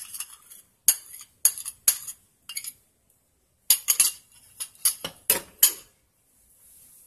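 A spoon scraping and tapping against the rim of a bowl to knock out a soft avocado purée: a run of sharp clicks and scrapes, a short pause near the middle, then a cluster of louder knocks before it stops.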